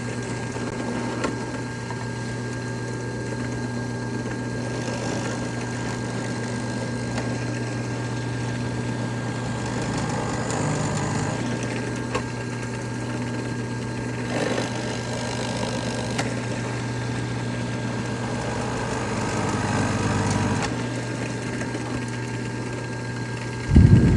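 A machine motor running with a steady hum and a few steady higher tones, swelling slightly twice. Just before the end a much louder low burst comes in.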